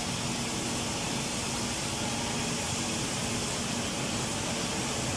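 Steady hum and hiss of woodworking factory machinery, with a faint low tone held throughout.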